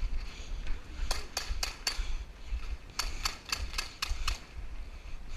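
Airsoft pistol firing in two quick strings: four shots about a second in, then about seven more a second later.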